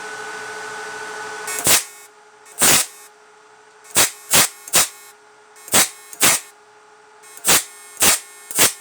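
12 V inverter fish-shocking machine humming, then about ten short, loud sparking cracks at irregular intervals as its high-voltage output is shorted.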